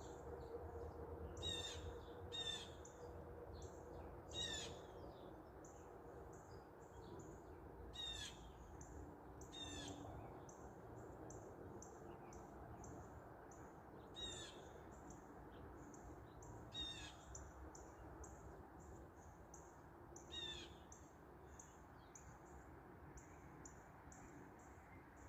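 Wild birds calling: short, harsh, high calls repeated every one to four seconds, with rapid faint high chirping behind them, over a faint low background hiss.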